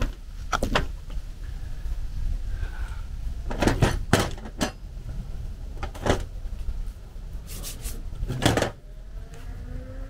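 Irregular metallic clinks and knocks as metal fittings (hinge, bolts, scaffold tube) are handled and worked together. The knocks come loudest around four seconds in and again near eight seconds, over a steady low rumble.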